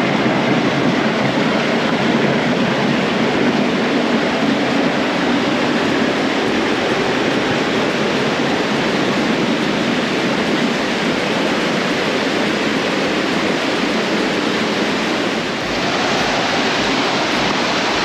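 Steady rushing water, a loud even noise with no break except a brief dip about sixteen seconds in.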